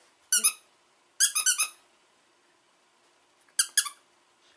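Squeaker inside a MAUMAPET cigar-shaped plush dog toy squeaking as a small dog chews it: three clusters of quick, high-pitched squeaks, about a third of a second, just over a second and about three and a half seconds in.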